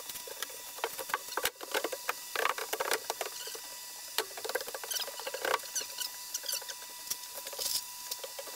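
Scratchy rustling and light clicks of a push broom sweeping across insulation and plywood, with knocks and scrapes of a plywood subfloor sheet being set down, thickest between two and three seconds in.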